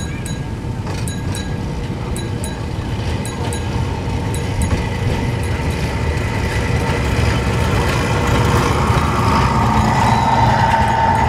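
Small railcar on a 600 mm gauge park railway approaching and running past, its rumble growing steadily louder as it nears. A steady whine joins in near the end as it passes close by.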